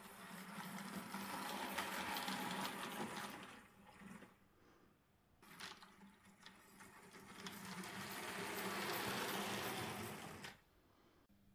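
A radio-controlled Bachmann Jubilee Class OO gauge model locomotive running along the track: the whir of its motor and wheels on the rails. It swells and fades twice, and the second pass cuts off sharply near the end.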